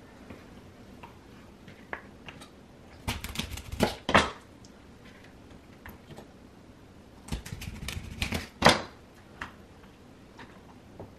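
Kitchen knife cutting small birds open on a wooden cutting board: two bursts of knocks and clicks, about three to four seconds in and again near eight seconds, with light handling ticks between.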